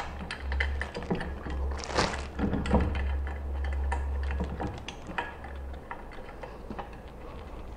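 Scattered small clicks and knocks of hex-key screws being driven into the mounting base of a collaborative robot arm, with rustling of the arm's plastic wrap. A low steady hum runs underneath and drops away about six seconds in.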